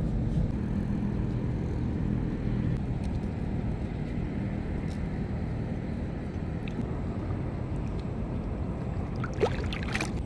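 A steady low mechanical hum, with a short burst of water splashing about nine and a half seconds in.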